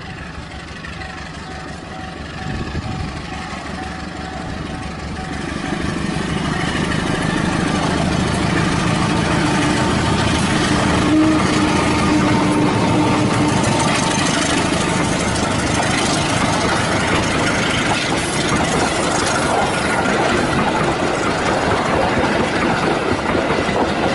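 CC201 diesel-electric locomotive approaching and passing close by, its engine running louder and louder over the first eight seconds, then staying loud as the locomotive and the passenger coaches behind it roll past.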